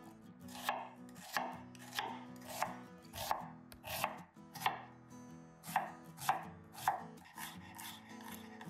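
Knife chopping vegetables on a cutting board: slow, even cuts about one every two-thirds of a second, with a brief pause about halfway through.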